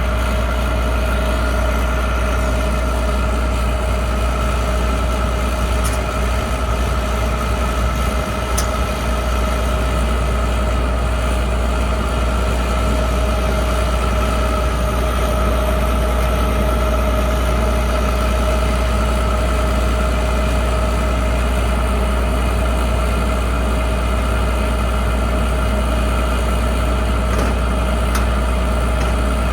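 Large diesel farm machine running at a steady speed: a constant low drone with a steady whine above it.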